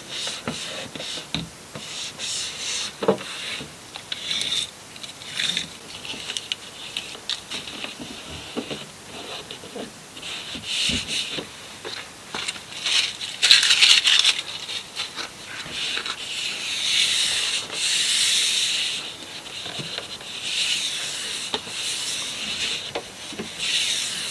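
Backing liner being peeled slowly off a self-adhesive vinyl side stripe while the stripe is rubbed down onto the car's body panel: irregular rubbing and scraping, with a few longer peeling hisses in the middle and near the end.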